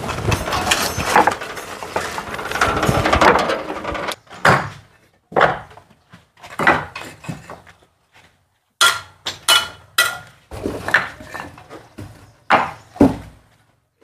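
Scraping and knocking: a dense clatter for about four seconds, then a dozen or so separate sharp scrapes and knocks with short pauses between them.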